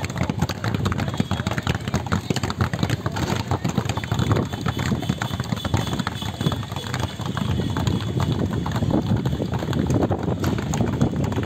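Many basketballs being dribbled at once on a hard court: a dense, irregular patter of overlapping bounces that never lets up.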